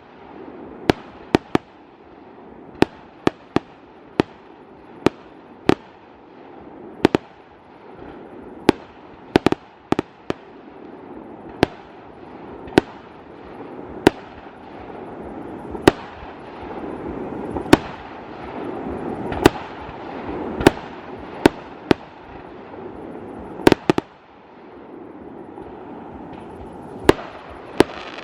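Fireworks display: sharp bangs of shells bursting, about one every second or so, some in quick pairs, over a continuous noisy background that swells about halfway through.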